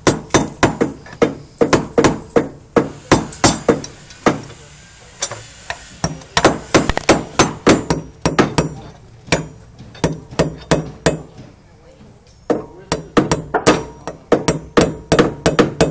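Hammers driving nails through steel joist hangers into a wooden deck board: sharp, ringing strikes, several a second, with a brief pause about twelve seconds in.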